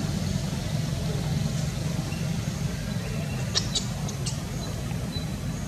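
A newborn monkey gives a quick run of four or five short, high squeaks a little past the middle, while its mother handles it. A steady low rumble runs underneath.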